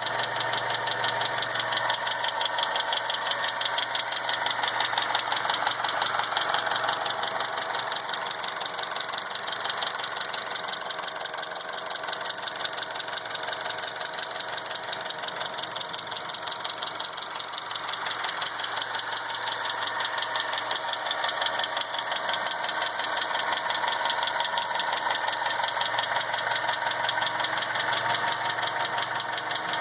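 2012 Chevy Cruze four-cylinder engine running steadily with a fast, even ticking from the valvetrain, which the owner puts down to bad hydraulic lash adjusters (lifters) rather than ticking fuel injectors.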